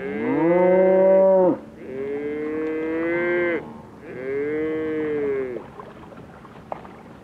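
Highland cattle mooing: three long moos, one after another, the first the loudest.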